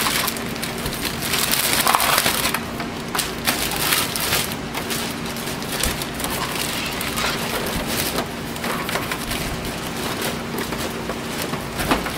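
Clear plastic bag crinkling and rustling in irregular bursts as it is pulled down off a large inkjet printer.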